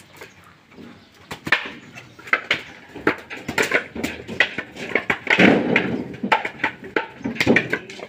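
Dehusked coconuts knocking against each other and into a woven bamboo basket as they are picked off a heap and dropped in. There are irregular dull knocks, about one or two a second, with a longer, louder rustling stretch about five and a half seconds in.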